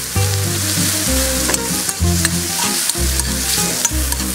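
Sliced mushrooms and freshly added chopped garlic sizzling in a hot pan, stirred with a metal spatula that scrapes and clicks against the pan. Background music with a low bass line, its notes changing about once a second, plays along.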